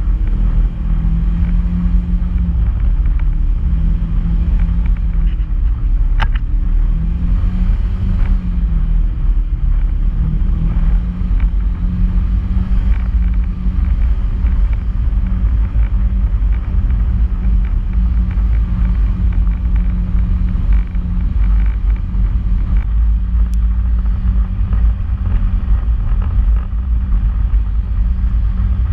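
Polaris RZR side-by-side driving on a rough dirt trail: a steady engine drone over a heavy low rumble. The engine pitch wavers a little in the first ten seconds and then holds steady, and two brief sharp clicks stand out, one about six seconds in and one near twenty-three seconds.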